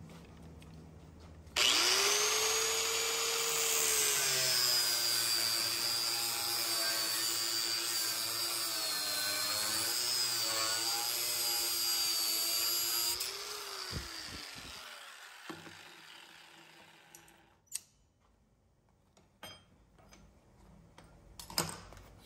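Angle grinder with a thin cutoff wheel cutting through square steel tubing. It starts suddenly about a second and a half in, and its whine sags slightly as the wheel bites into the steel. It is released after about thirteen seconds and winds down, followed by a few light knocks.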